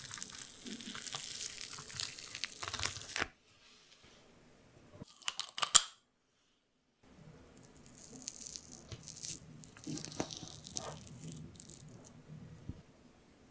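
A stainless-steel ice-cream scoop drags through thick, crumbly cookie dough with a close, crackly tearing and scraping that stops about three seconds in. A few sharp clicks come at about five and a half seconds. From about seven seconds in there is more soft scraping and crumbling of the dough.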